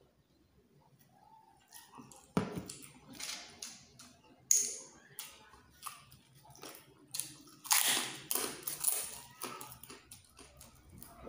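Close-up eating sounds of cooked freshwater snails in coconut milk: from about two seconds in, irregular clicks of shells and short hissing sucks as the meat is drawn out of the shells, with chewing.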